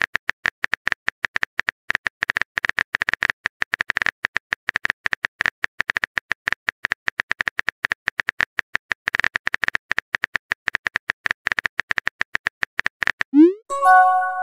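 Simulated phone keyboard typing: a rapid run of short, sharp key clicks as a message is typed out letter by letter. Near the end a rising swoop and a short chime sound as the message is sent.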